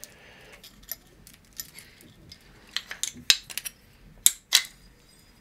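Small 3D printer kit parts and tools handled by hand: scattered light clicks and clinks of plastic and metal, with three sharper clicks in the second half.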